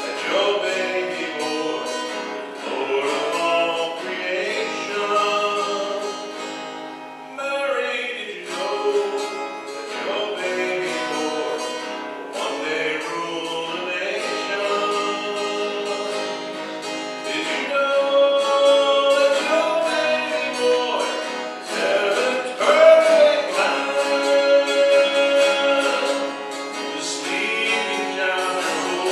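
A worship song sung by a voice at a microphone, accompanied by a strummed acoustic guitar.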